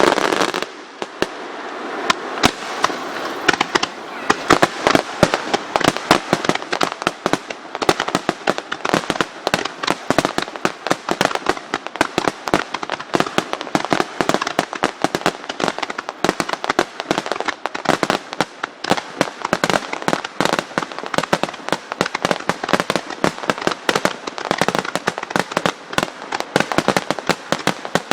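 Starmine aerial fireworks barrage: a dense, unbroken string of rapid bangs and crackles, several a second.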